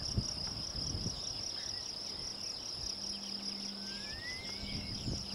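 Crickets chirping at night in a steady, pulsing trill.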